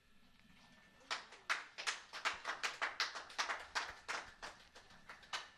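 A small group of people clapping by hand, with separate sharp claps starting about a second in and thinning out near the end. It is the launch team applauding a successful spacecraft separation.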